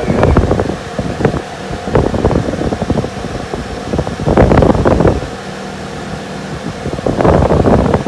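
Portable air conditioner running, its fan blowing a steady stream of air with a constant hum, and the air stream buffeting the microphone in uneven gusts.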